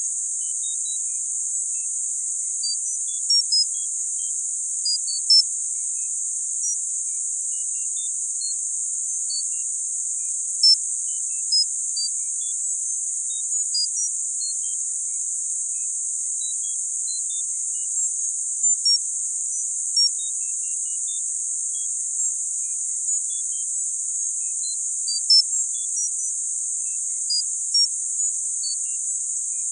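Synthesized tinnitus-masking sound: a steady, high-pitched hiss, with short high tones pinging at irregular moments, about one or two a second.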